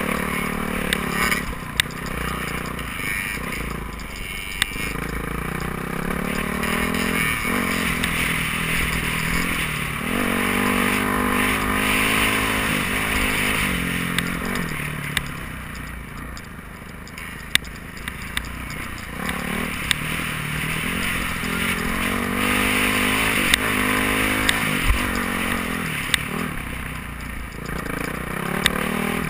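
Dirt bike engine running, its pitch rising and falling as the throttle is rolled on and off, with scattered sharp clicks and knocks from the bike on a rocky dirt trail.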